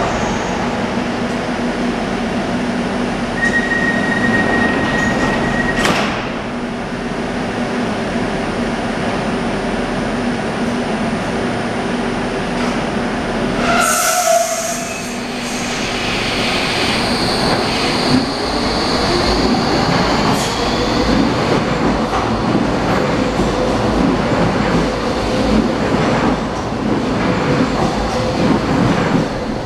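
Docklands Light Railway train at an underground platform, first standing with a steady electrical hum and a high tone lasting a couple of seconds that ends in a sharp click. In the second half it pulls away, its motor whine slowly rising as it accelerates, with rumbling wheels.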